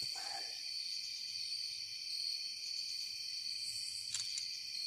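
Night insect chorus: a steady high-pitched trilling at several pitches at once, with no break.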